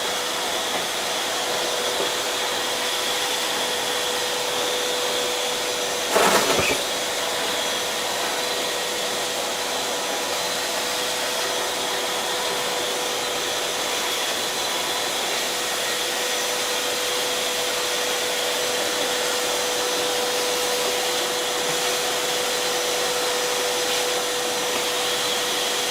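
Electric vacuum cleaner running steadily while it sucks up dirt from a floor, a constant whine over its rushing air. About six seconds in there is a short loud clatter.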